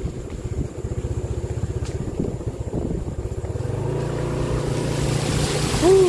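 Motor scooter engine idling with an even low pulse, then pulling away from about four seconds in as it settles into a steadier, louder drone, with wind rushing over the microphone.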